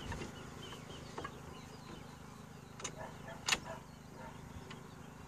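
A few sharp wooden knocks and clacks from a small wooden marimba and its mallets being handled and folded away, the loudest about three and a half seconds in. Birds call faintly in the background.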